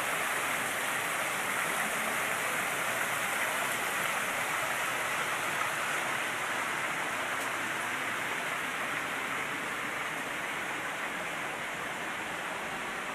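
Water splashing steadily in a public fountain, pouring over the rim of the basin into the pool, a little quieter near the end.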